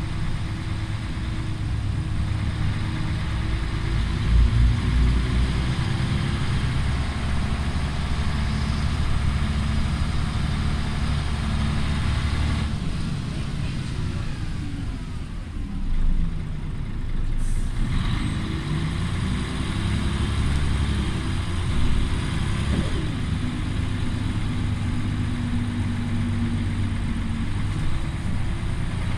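Volvo B10BLE bus's six-cylinder diesel engine running, heard from inside the saloon while the bus is under way. About halfway through, the engine note falls as the bus slows, then climbs again as it pulls away.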